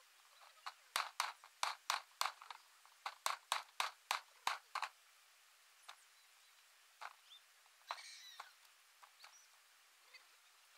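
Knife chopping mutton on a wooden block: a quick run of sharp chops, about three a second, for the first five seconds, then a few scattered ones.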